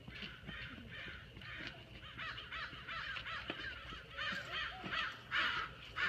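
Birds giving a rapid series of harsh, cawing calls, a few a second, growing louder towards the end.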